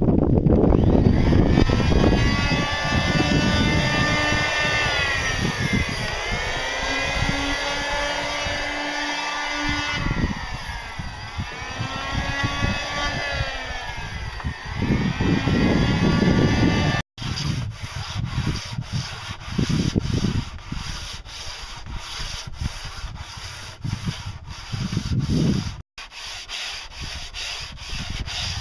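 A corded handheld power tool runs against a wooden boat hull, its motor pitch dipping and rising as it bites into the wood. About seventeen seconds in this gives way to sandpaper rubbed by hand over the wood in short, uneven strokes.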